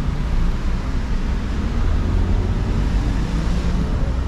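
City street traffic: car engines running steadily, mostly a low rumble.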